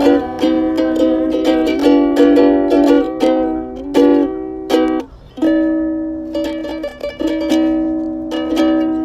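Ukulele strummed in quick, bright chords for about five seconds, then a brief stop and a few chords left to ring out and fade.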